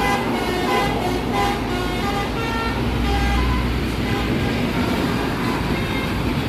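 Telolet basuri bus horn playing a quick tune of short toots that step up and down in pitch, fading out about two seconds in, followed by the low rumble of a bus engine going by.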